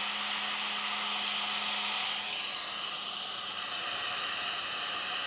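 Black & Decker heat gun running on its low setting: a steady rush of fan and airflow. A faint low hum under it fades out about two seconds in while the air noise continues.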